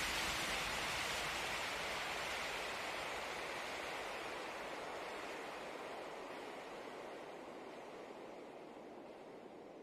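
A steady rushing noise that fades out slowly and evenly.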